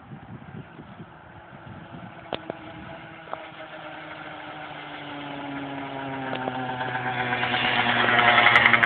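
Tuned Peugeot Zenith 50cc two-stroke scooter riding toward the listener and passing close by near the end, its engine growing steadily louder as it approaches.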